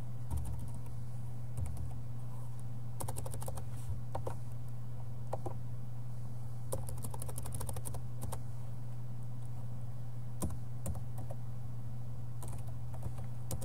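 Computer keyboard keys being typed in short, scattered bursts of clicks as a terminal command is deleted and retyped, over a steady low hum.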